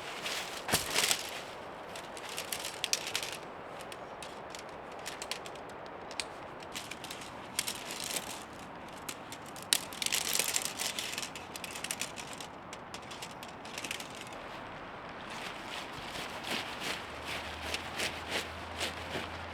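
Irregular rustling and crackling with sharp clicks and snaps as a tent is pitched: fabric and poles being handled. The crackling comes in clusters, the loudest about a second in and again around ten seconds in.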